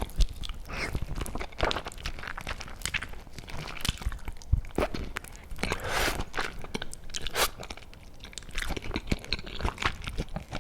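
Close-miked eating: biting into and chewing a braised cola chicken wing, with irregular wet smacks and small crunches.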